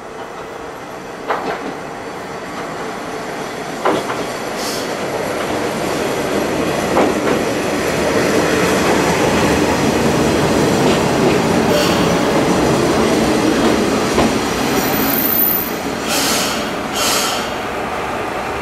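HSOR-100 diesel railcar pulling into a station and braking to a stop: the engine and wheels on the rails grow steadily louder as it draws alongside, with a couple of sharp clacks over rail joints early on, then two short hisses near the end as it halts.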